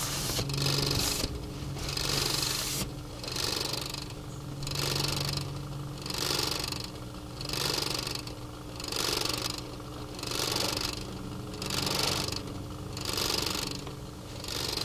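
Paper wipe rubbed back and forth over a dusty paper schematic sheet, an even rhythm of swishing strokes about every second and a half, over a faint steady low hum.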